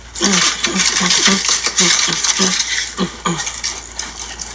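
Foil burger wrapper and paper bag crinkling and rustling as food is handled, a dense crackle of small clicks. About ten short, evenly spaced voice sounds, like breathy laughs, run under it for the first three seconds or so.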